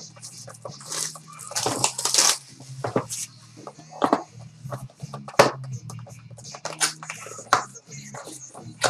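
Trading-card packaging being handled: rustling and crinkling, densest about two seconds in, with several sharp knocks and clicks. A steady low hum runs underneath.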